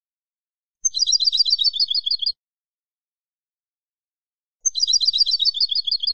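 European goldfinch song: two matching phrases of rapid high chirping notes, about nine a second, each lasting about a second and a half, with a silent gap of about two seconds between them.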